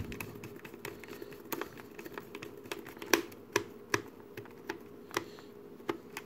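Small Phillips screwdriver turning a screw into the plastic battery cover of a digital multimeter: light, irregular clicks and taps as the tip works in the screw head and knocks against the case.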